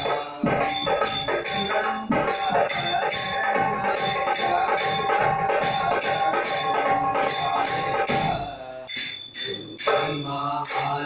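Male voices singing a devotional bhajan together, holding one long note, over a barrel drum and the steady jingle of a small hand tambourine at about three to four strokes a second. The singing drops away briefly near the end while the jingling goes on.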